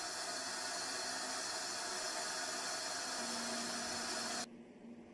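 Steady hiss of air venting through the Stratos capsule's dump valve as the capsule is depressurized. It cuts off suddenly about four and a half seconds in, leaving a faint hum.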